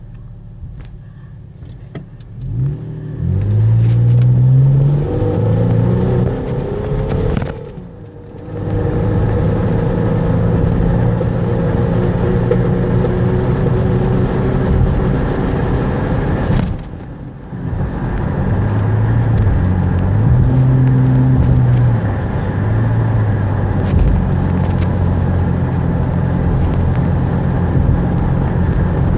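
2001 Nissan Xterra engine pulling under hard acceleration, the condition in which the owner says it misfires without setting a check engine light. The sound builds a couple of seconds in, drops off briefly about eight seconds in and again about seventeen seconds in, and otherwise runs loud and steady.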